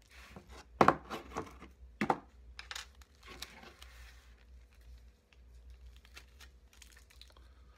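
Packing tape pulled off its roll in a few short, crackly rips, the two loudest about a second and two seconds in, then the tape handled and pressed onto a plastic display base with faint small clicks.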